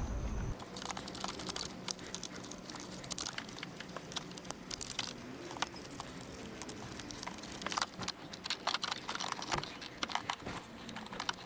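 Scattered clicks, knocks and plastic rattles from hands handling the TIPM fuse box and its connectors during a module swap. The clicks come thicker in the second half.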